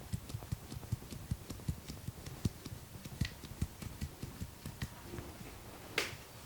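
Rapid dull thuds of hands tapping and patting in an Indian head massage, several a second and uneven, with one sharp click near the end.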